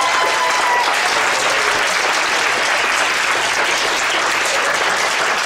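A class of students applauding, steady clapping across the room.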